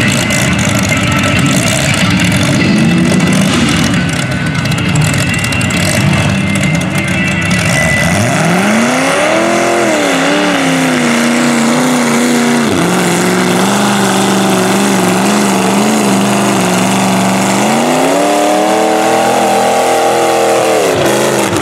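Lifted Chevrolet S-10 mud truck on tractor tires powering through a deep mud pit. A loud rushing noise fills the first several seconds. The engine's pitch then climbs about eight seconds in, holds high with a brief dip, rises again near the end and drops off.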